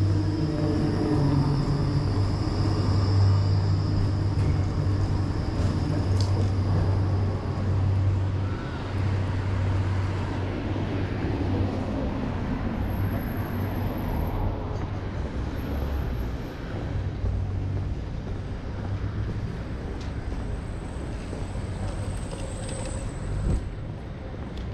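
Articulated electric tram passing close by, with a steady low hum and a faint high whine for the first several seconds. It then gives way to general city street traffic noise.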